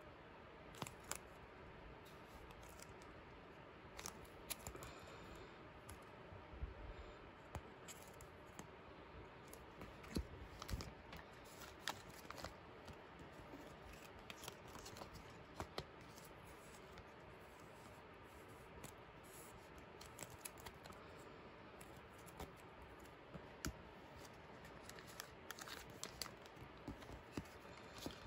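Clear plastic card sleeves rustling and crinkling as photocards are slid into them, with many small crisp clicks and scrapes scattered through, over a faint steady hiss.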